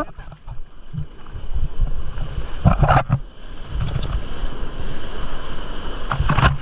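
Sea surf and water splashing close to the microphone, with wind buffeting it; louder splashes come about two and a half seconds in and again near the end.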